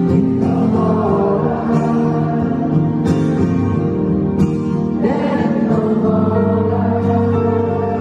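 Live acoustic song: a man sings over a strummed acoustic guitar.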